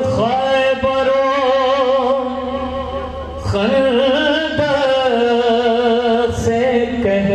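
A man singing a verse in long, drawn-out notes with a wavering vibrato, breaking off briefly about three seconds in before carrying on.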